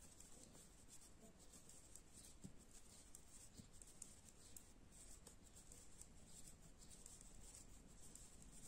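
Faint ticks and light scraping of knitting needles working wool stitches, a purl row being knitted by hand.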